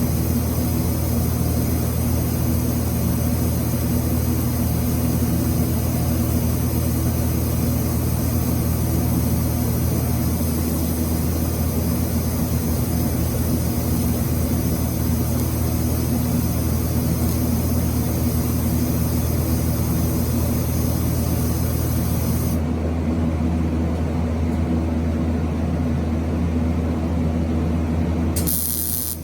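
TIG welder running during welding: a steady low electrical hum with a hiss above it. The hum thins about ten seconds in, and the hiss drops away about three-quarters of the way through.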